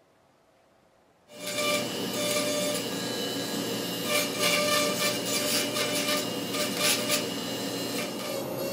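A handheld pen-style rotary carving tool starts about a second in, its bit grinding into musk ox horn. It gives a steady whine with a rasping that swells and eases as the bit bites.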